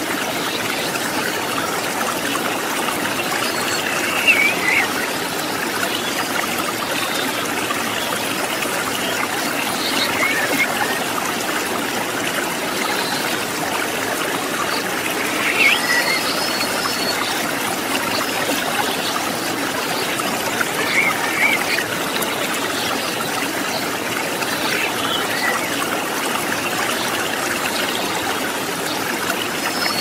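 A shallow rocky river flowing steadily over stones, a constant trickling and running of water. A few short high notes stand out now and then.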